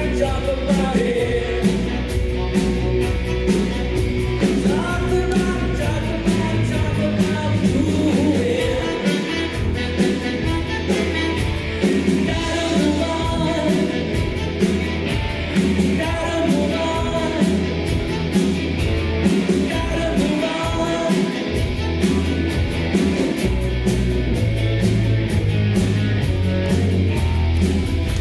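Live rock band playing a song with electric guitars, bass guitar and drum kit and a steady beat, with a woman singing lead.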